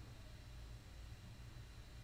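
Very quiet room tone: a faint steady low hum with light hiss, and nothing else.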